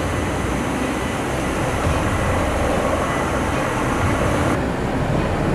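Helicopter hovering low over water: a steady rumble of rotor and engine mixed with the hiss of rotor-wash spray. The upper hiss cuts off abruptly about four and a half seconds in.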